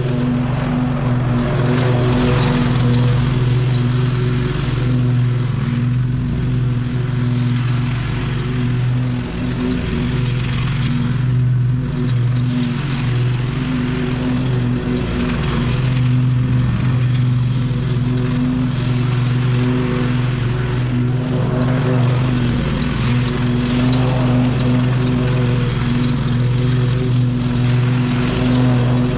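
Gas lawn mower engine running steadily while cutting grass, its pitch wavering slightly as the load changes.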